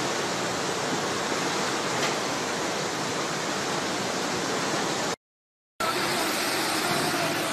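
Floodwater rushing in a torrent, a steady rushing noise. It drops out for about half a second just after five seconds in, then the rushing resumes.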